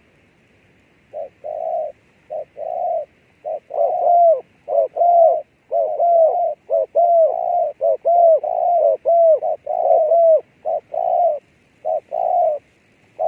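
A dove cooing close by: a long run of short, arched coos, starting about a second in and coming faster and louder through the middle.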